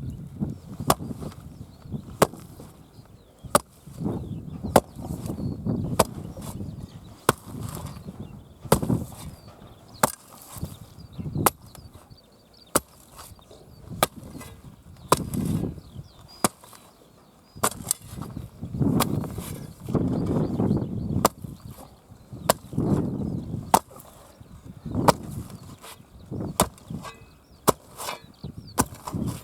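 Sharp knocks repeated roughly once a second, with duller low rubbing or scraping sounds between them.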